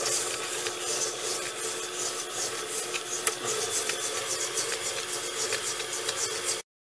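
Electric stand mixer running with its wire whisk beating butter and sugar in a stainless steel bowl, creaming them: a steady motor hum with a few light clicks. It cuts out abruptly near the end.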